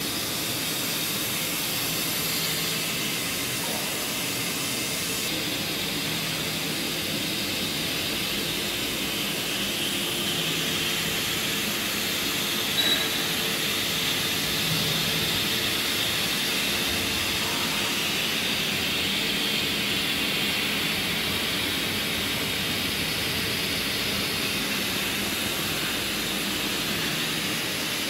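Hot-air seam welding machine running: a steady hiss of hot air from the welding nozzle over a low, even hum as it seals tape along a fabric seam. There is one brief click about halfway through.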